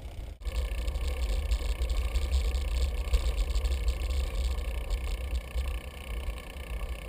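Wind buffeting a GoPro action camera's microphone during a bicycle ride, a steady low rumble with rough hiss above it. The sound drops out for a moment about half a second in, then comes back louder.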